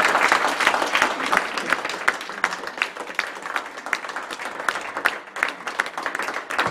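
Audience applauding: dense hand-clapping, loudest at first, then thinning out and growing quieter.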